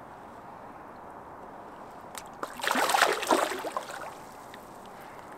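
Water splashing and sloshing for about a second and a half, starting a little past two seconds in, over a steady low background wash: a carp being released back into the lake and kicking away.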